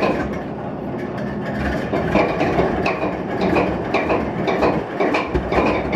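GE Dash 8-32B locomotive's 12-cylinder 7FDL diesel engine starting up and catching, firing in uneven rhythmic pulses about twice a second that get louder about two seconds in. This is its first start after months in storage, on fresh fuel.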